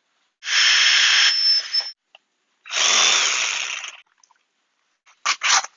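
Power drill boring holes through white PVC pipe in two bursts of about a second and a half each. Near the end come two short scraping strokes on the pipe.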